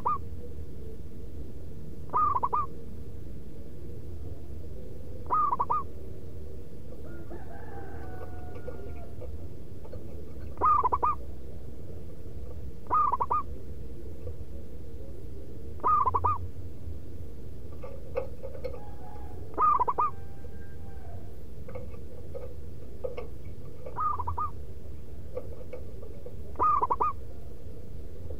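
Zebra dove (perkutut) cooing: a short, loud, rhythmic coo phrase repeated about every two to three seconds, over a steady low hum.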